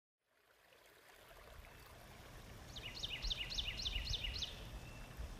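Outdoor ambience fading in, a steady low rumble and hiss, with a songbird singing a quick run of about six repeated phrases, each a pair of falling whistled notes, about halfway through.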